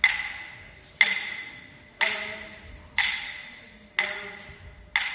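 A steady beat of sharp percussive clacks, about one a second, each ringing out briefly and echoing in a large hall, keeping time for the dancers.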